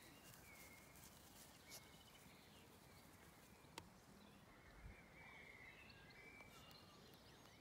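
Near silence: faint outdoor background with a few scattered faint bird chirps and a single soft click just before the middle.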